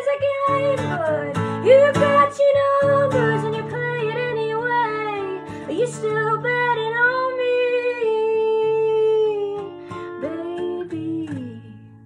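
A woman singing with a strummed acoustic guitar. The song ends shortly before the close, with a last sung note falling away and the guitar fading out.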